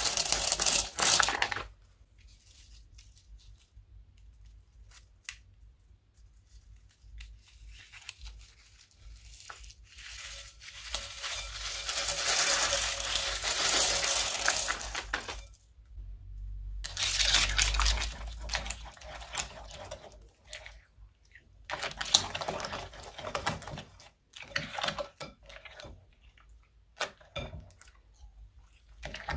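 Plastic beads and small glass-like pieces poured from a plastic piping bag onto slime in a plastic bowl, rattling and pattering in several pours of a few seconds each. Near the end, slime is squished and stirred by hand, with scattered clicks of beads.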